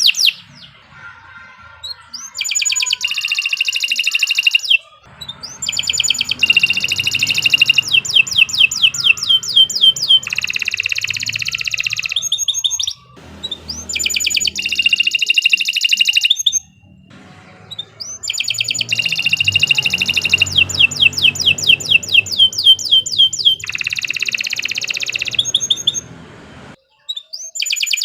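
Domestic canary singing long phrases of rapid trills, each built from fast repeated notes, broken by brief pauses about a second in, around five, thirteen and seventeen seconds in, and near the end.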